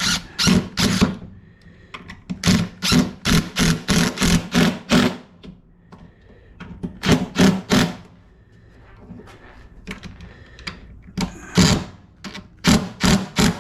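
Runs of sharp knocks on a wooden workbench frame, about three a second: three, then a run of about nine, then three more, a single knock, and three near the end.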